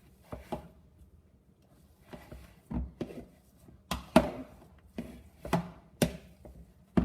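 Irregular sharp clicks and knocks, about ten of them, from kitchen utensils and a can being handled.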